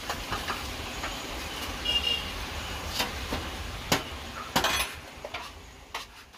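A metal spoon clinking and scraping against a steel food tray as shawarma chicken is scooped into a pita. It gives several sharp clinks over a steady low rumble of kitchen background noise, which fades near the end.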